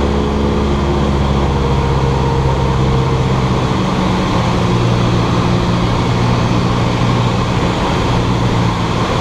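Cessna 172's piston engine and propeller running steadily, a loud drone whose pitch shifts slightly about three seconds in.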